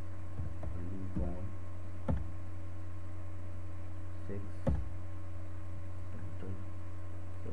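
Steady low electrical hum, with two sharp clicks, about two seconds in and just under five seconds in, from typing commands on a computer. A faint murmuring voice is heard briefly now and then.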